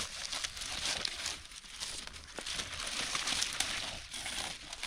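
Crinkling and rustling of something being handled, a steady stream of small crackles.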